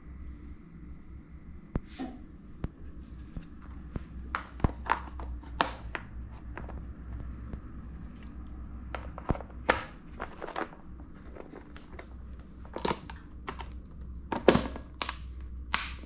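Hard plastic lunch box and its red plastic trays clicking and knocking as they are handled and fitted together, and the lid snapped shut. The clicks come in a string and are loudest near the end, over a steady low hum.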